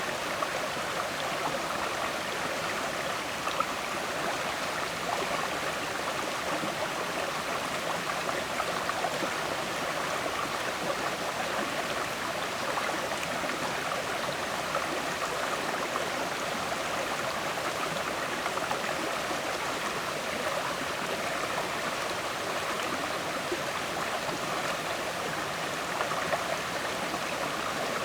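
River water flowing and gurgling over stones, a steady rushing with small splashes.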